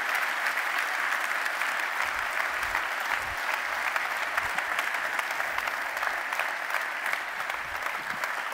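A large audience applauding, a steady even clapping.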